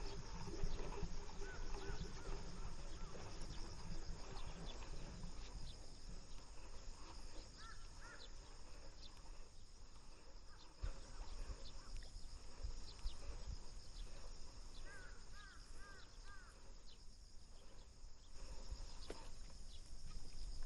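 Quiet outdoor ambience with a bird giving short chirps in small clusters of two to four, three times, over a steady low background hum and scattered faint high ticks.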